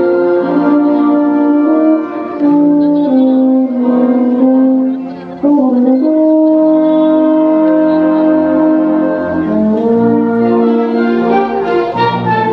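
Wind band playing a euphonium solo piece: the euphonium carries the melody in long held notes over the band's brass accompaniment, with a short break about five seconds in.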